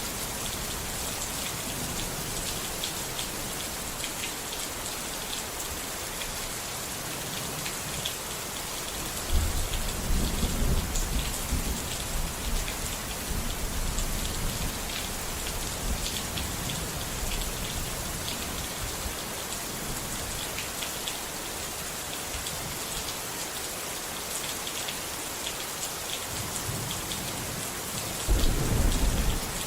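Steady heavy rain falling, with two low rolls of thunder: one starting about nine seconds in and lasting a few seconds, another near the end.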